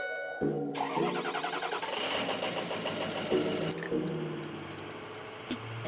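A Ford pickup truck's engine being started from inside the cab: a short tone, then the engine cranks, catches within the first second and runs on at idle, easing slightly toward the end.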